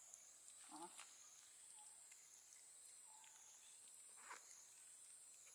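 Near silence, with a faint, high insect drone that wavers up and down in pitch about once a second, and a couple of faint brief sounds about a second in and near four seconds.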